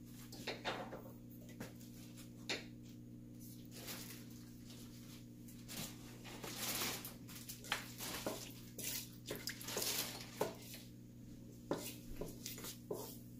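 Whole spices (bay leaf, star anise, cardamom, cloves) sizzling in hot vegetable oil in a pan, with scattered crackles and pops and a hiss that thickens in the middle, over a steady low hum. Near the end a wooden spatula stirs them around the pan.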